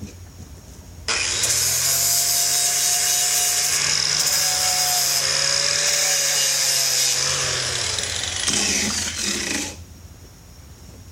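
Angle grinder working steel on a truck shifter: it starts about a second in, runs steadily with a motor whine under the grinding noise for about eight seconds, then stops near the end.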